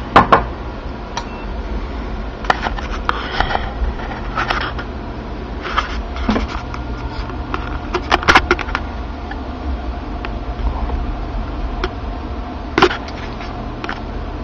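Steady low hum of a desktop computer's cooling fans, with scattered sharp clicks and knocks, the loudest a fraction of a second in and a cluster about eight seconds in.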